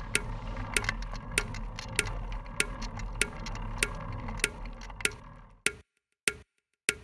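Sharp, evenly spaced ticks, about one every 0.6 seconds, over a steady low hum. About five and a half seconds in, the hum cuts off and the ticks carry on alone.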